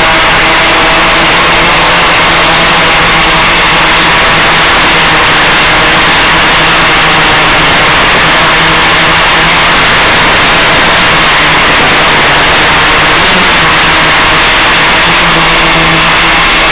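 Audio from an analog FPV video downlink recorded on a ground DVR: a loud, unchanging hiss with a low steady hum under it, and no treble.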